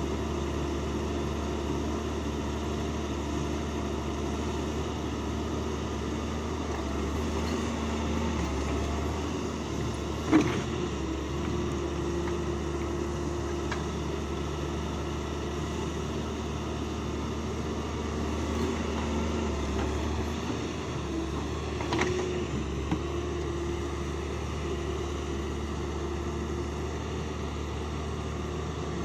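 Heavy earthmoving machine's diesel engine running steadily under load. A sharp knock comes about a third of the way through and another about three-quarters through.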